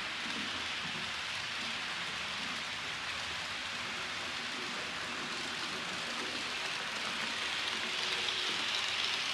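Model train running on the layout: a model Re 460 locomotive and its coaches rolling along the track, a steady whirring hiss of wheels and motor. It grows a little louder near the end as the train passes close.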